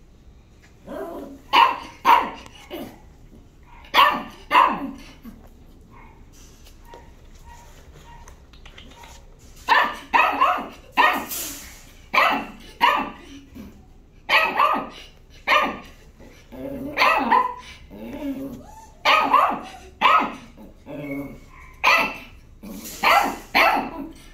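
A dog barking again and again in single and double barks. It falls quiet for a few seconds a quarter of the way in, then barks more often.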